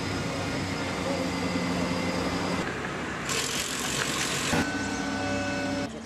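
Concrete pump truck running steadily as it pumps concrete through the hose, a low machine hum with a loud hiss for about a second midway. About two-thirds of the way through, the hum changes abruptly.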